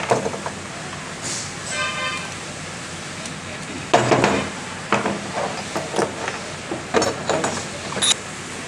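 Metal clinks and knocks of an alternator's aluminium housing and steel through-bolts being handled and worked apart, coming irregularly from about four seconds in. About two seconds in there is a short horn toot.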